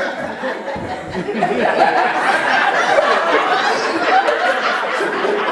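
Audience laughing: many people chuckling and talking at once, building up about a second and a half in.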